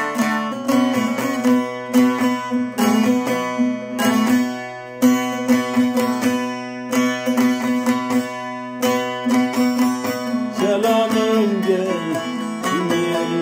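Bağlama (long-necked Turkish saz) played solo: a fast plucked melody over a steady drone note. A man's singing voice comes in near the end, wavering over the instrument.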